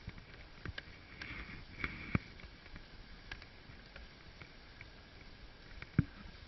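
Wooden dog sled gliding over packed snow behind a dog team: a soft steady hiss from the runners, broken by scattered knocks and creaks from the sled frame, the sharpest about two seconds in and near the end.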